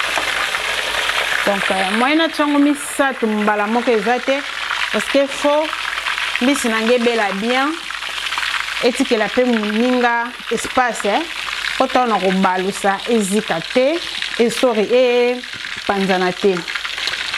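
Fish frying in hot oil in a deep pan, sizzling steadily, with a person's wavering pitched voice over it in short phrases from about a second and a half in.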